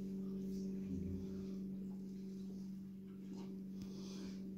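A steady low hum runs throughout, with faint scattered rustles and a soft low thud about a second in.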